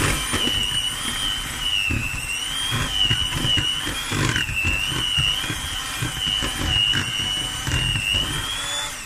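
Electric hand mixer running, its motor whining steadily with a slightly wavering pitch, while its beaters knock and rattle through cubes of room-temperature butter in a plastic bowl.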